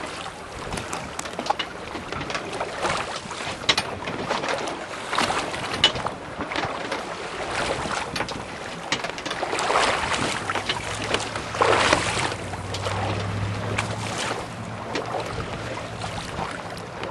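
Wind buffeting the microphone and choppy water splashing against a boat's hull in uneven surges. A low steady hum joins about ten seconds in.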